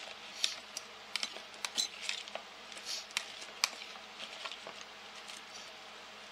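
A fork clicking and scraping against a bowl while zucchini sticks are stirred in egg wash. The clicks are sharp and irregular, most of them in the first few seconds and fewer near the end.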